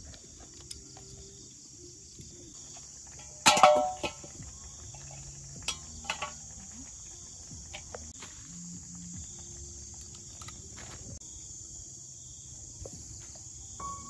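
Insects chirring steadily in the grass, with a sharp ringing clatter about three and a half seconds in and a few lighter clicks a couple of seconds later.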